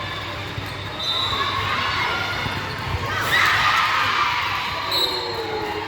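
Players and spectators shouting and cheering during a rally, with a louder burst of shouting about three seconds in.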